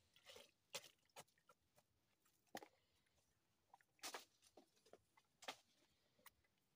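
Near silence with faint, irregular crackles and rustles from a small twig fire under a cooking pot and a plastic milk-powder sachet being handled.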